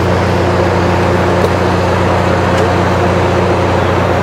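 An engine running steadily at constant speed, a steady low drone.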